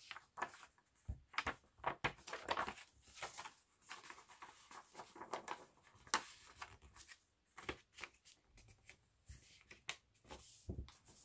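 Pages of a small children's book being handled by hand and fitted together: faint, irregular paper rustles, slides and light taps.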